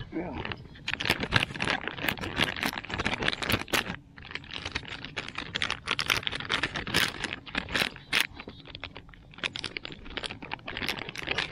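Fishing tackle being handled, clicking and rattling in quick, irregular clicks, with a short pause about four seconds in.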